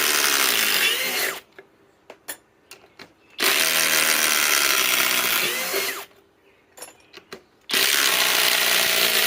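Flex Quick Eject cordless driver running in three long bursts on small fasteners. Each run is a steady motor whine whose pitch drops as it slows. Small clicks fall in the gaps between runs.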